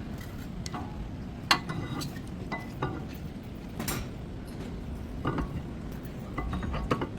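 Hand tools and metal parts clinking and tapping at irregular intervals, the sharpest knock about one and a half seconds in, over a steady low rumble.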